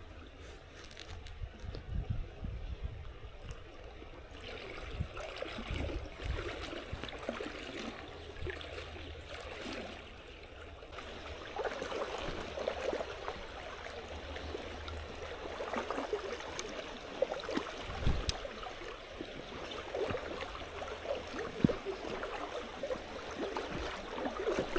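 Creek water flowing steadily, growing fuller about eleven seconds in.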